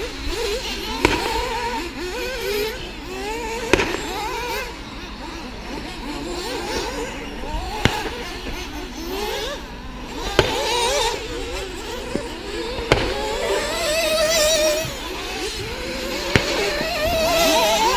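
Radio-controlled off-road cars racing: several motors whining up and down in pitch as they accelerate and brake, with a sharp clack every second or two from cars hitting the track or each other.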